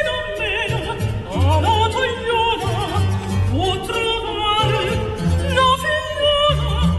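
Music: an operatic-style singing voice with wide vibrato over an instrumental accompaniment with sustained bass notes.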